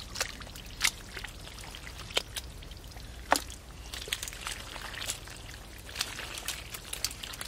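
Hands groping and sloshing through shallow muddy water, with trickling, dripping and about ten small irregular splashes, the sharpest just before a second in and about halfway through.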